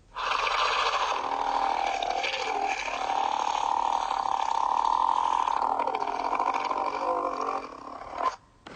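Sea snake snarl sound effect: one long, harsh snarling creature sound lasting about eight seconds, its pitch dipping twice, then cutting off abruptly.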